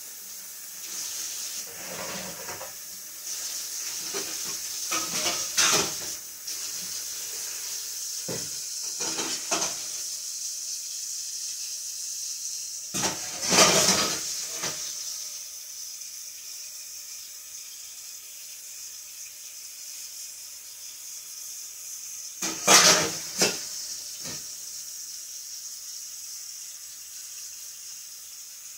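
A steady hissing rush with clattering and scraping of metal pans or parts now and then, loudest a little after halfway and again about three-quarters through.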